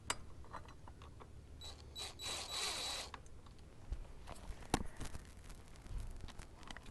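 Small metallic clicks and taps of hand tools and bolts as the headlight bracket's outer bolts are put in loosely, with a brief rasping burst about two seconds in and a sharper knock near the middle.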